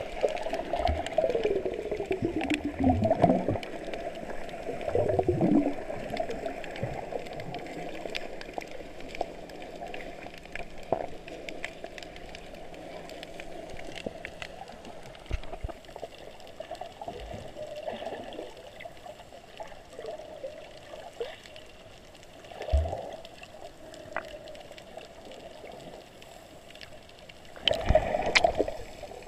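Water heard through a submerged camera: muffled gurgling and sloshing with faint crackles. There are a few louder swirling surges near the start, a short thump late on, and a loud rush of water just before the end.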